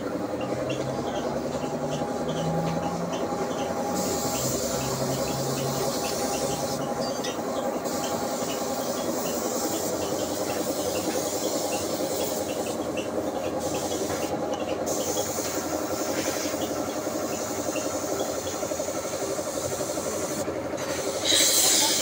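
Compressed-air paint spray gun hissing in spells, with brief pauses, over the steady rapid hum of an air compressor feeding it through the hose. The hiss swells louder near the end.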